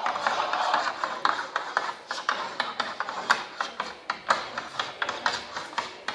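Electronically amplified mark-making: drawing tools scratching and tapping on paper along a table, in irregular quick strokes, several a second.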